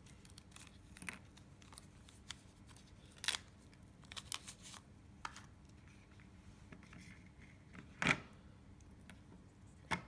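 Faint handling of small plastic items: a sealed plastic pouch rustling and crinkling as hearing aids are taken out, with light clicks and taps as the small devices are set into and lifted from hard plastic carry cases. The sharpest tap comes about eight seconds in.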